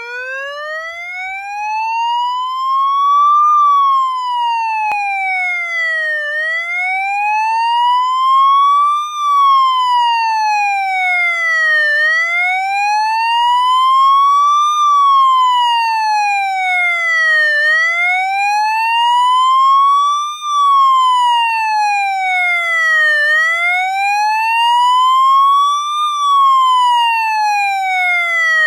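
Police siren sounding its slow wail: a single tone rising and then falling again, each rise and fall taking about six seconds.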